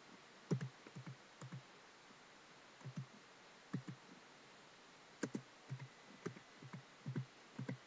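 Typing on a computer keyboard: irregular keystrokes and clicks, a few at a time with short pauses between.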